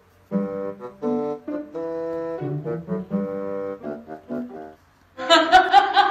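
Background music: a short melody of separate held notes on a single wind instrument, then from about five seconds in, louder and busier music with a quick beat.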